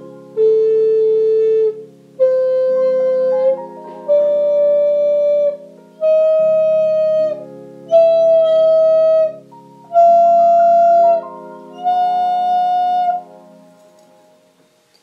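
Seashell-shaped ceramic ocarina playing an ascending scale: seven held, clear notes of a little over a second each, stepping up in pitch one after another. The last note stops about two seconds before the end.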